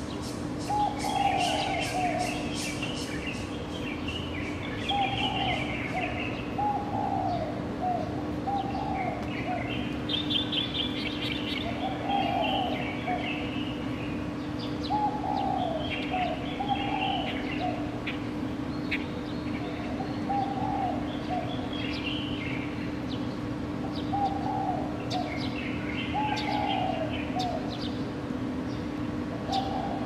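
Morning birdsong: one bird repeats short phrases of two to four low, falling notes every couple of seconds, over higher chirping and twittering from other birds. A steady low hum runs beneath.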